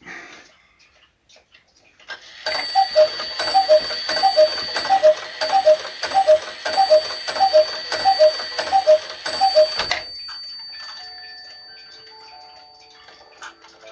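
Black Forest eight-day cuckoo clock striking the hour. Its cuckoo calls about a dozen times, each call a high note then a low note, repeated about every two-thirds of a second. Then a music box begins a tune near the end, over the clock's ticking.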